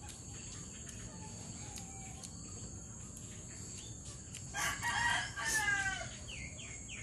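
A rooster crows once, starting about four and a half seconds in and ending on a falling note, over a steady high drone of insects.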